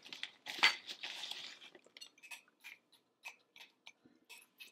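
Dark brown sugar being scooped and packed into a measuring cup: a crunchy, grainy rustle about half a second in lasting about a second, then faint scattered clicks and taps.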